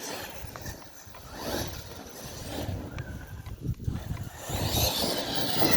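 Large electric RC truck with an Arrma Kraton 8S brushless motor being driven in its first run-in, punch and motor timing turned down: a rough rumble of motor and tyres with a few ticks, growing louder about five seconds in.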